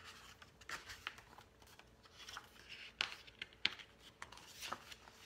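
Pages of a hardcover picture book being turned by hand: soft paper rustling with a few light clicks and taps, the sharpest about three seconds in.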